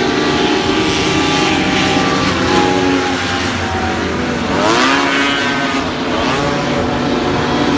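Formula 1 racing hovercraft engines and thrust fans running hard, several craft at once. One craft passes close about four and a half seconds in, its pitch sweeping sharply upward as it goes by.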